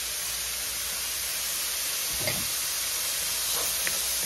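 Chopped bell peppers, onions and garlic sizzling steadily in oil in a cast-iron skillet, with a few light knocks of the wooden spoon stirring them, about two seconds in and near the end.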